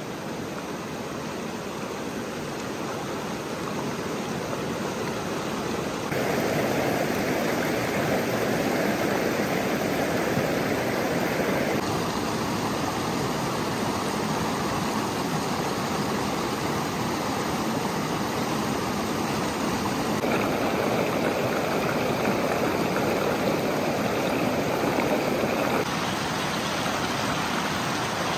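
Shallow rocky stream rushing and splashing over boulders in small rapids: a steady wash of water that steps a little louder or softer several times.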